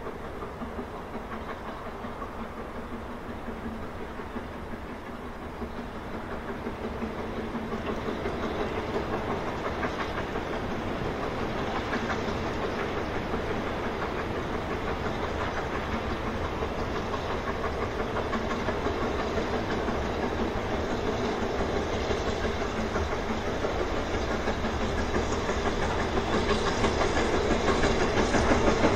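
BR Standard Class 9F 2-10-0 steam locomotive working hard with a goods train, its rapid exhaust beats and running gear on the rails growing steadily louder as it approaches.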